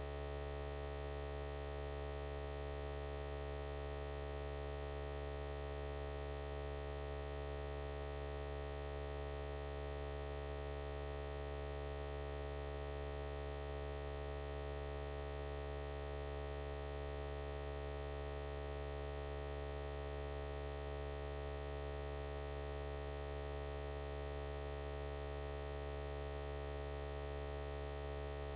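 Steady electrical hum: a low drone with several steady higher tones above it, unchanging throughout.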